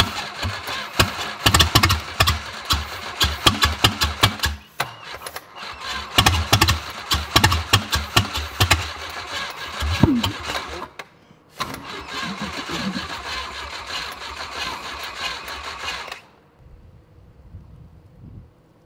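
Volvo Penta AQ130C four-cylinder marine engine cranking on its starter and firing in uneven bursts on starting fluid sprayed into the carburetor, without catching and running on its own. It goes in two spells with a short pause between, then a steadier stretch, and cuts off suddenly about three-quarters of the way through. The owners put the failure to run down to the air-fuel mixture.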